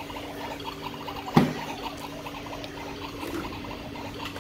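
A single sharp knock of plastic toy dishes about a second and a half in, over a steady low hum and faint repeated little chirps.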